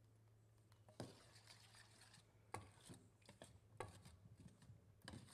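Faint kitchen-utensil sounds: a utensil scraping and stirring in cookware, with four light knocks about a second apart, over a low steady hum.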